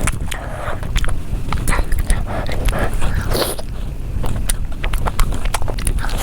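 Close-miked eating: biting and chewing food, with many quick irregular mouth clicks over a steady low rumble.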